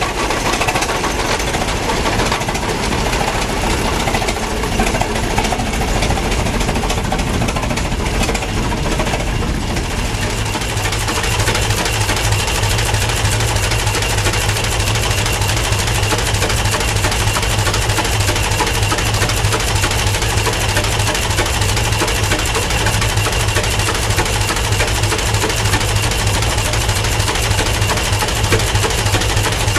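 Aultman-Taylor tractor's four-cylinder engine running steadily with an even mechanical clatter. About ten seconds in it becomes heavier and closer.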